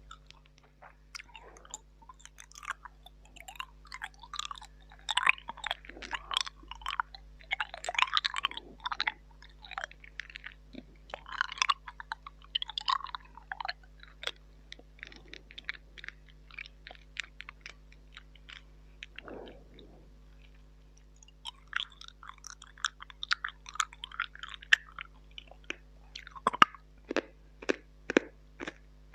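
Close-miked wet mouth sounds, with tongue clicks, lip smacks and chewing-like squelches made into a mini microphone as mock eating. They come in busy clusters with a pause in the middle, and end in a quick run of sharp clicks.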